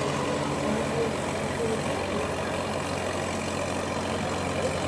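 Tugboat engine running steadily with a low, even throb.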